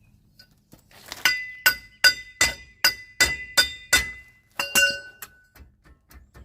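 About ten ringing metal-on-metal hammer blows, roughly two and a half a second, striking the axle nut threaded onto the end of the front CV axle to knock the axle loose from the hub assembly.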